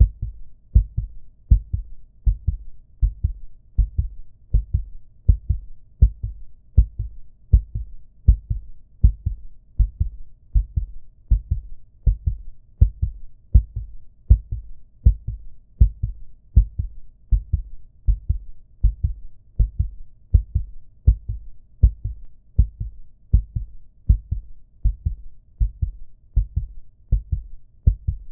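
Human heartbeat sound effect: a steady lub-dub, each beat a pair of low thuds, repeating evenly at a little more than one beat a second.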